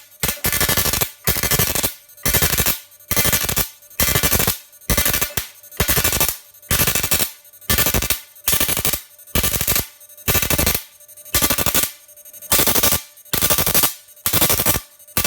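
12 V IGBT electric fish-shocking machine firing into salt water: loud, harsh buzzing pulses, each about half a second long, repeating about twice a second without a break.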